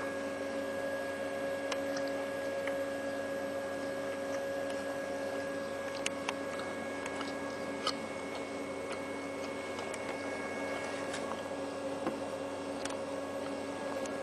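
Steady background hum made of several constant tones over a noise floor, with a few faint, scattered clicks.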